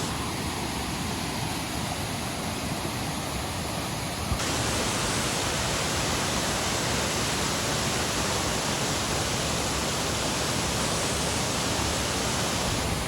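Steady rush of falling water, an even hiss with no distinct events. About four seconds in it switches abruptly to a slightly louder, brighter hiss.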